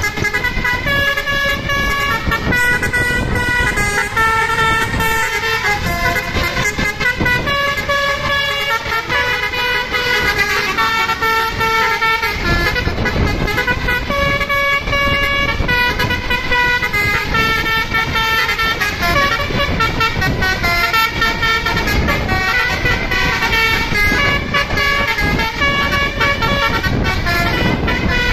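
Bus basuri telolet horn playing a continuous melody of held notes, changing pitch every half second to a second, over low vehicle noise.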